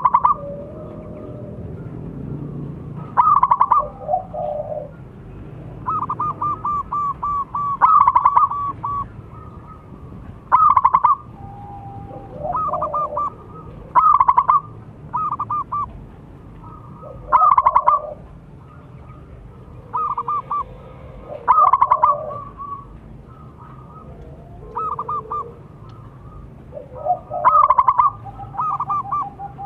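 Zebra dove (perkutut) singing its cooing song over and over, each phrase a quick run of rolling, stuttering notes, repeated every two to three seconds with some phrases fainter than others.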